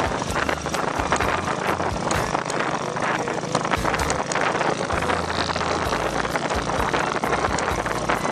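Wind buffeting the microphone of a camera riding on a moving bike, with a steady rush of air and road noise and a constant light rattling of the mount.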